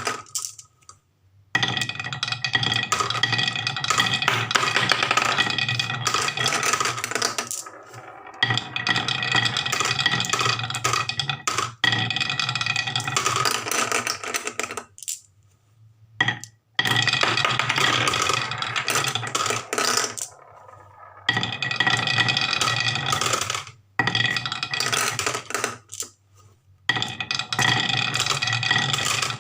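Marbles rolling and rattling down a wooden marble run, with a steady ringing note over the rumble. It comes in runs of several seconds that stop abruptly, five or six times.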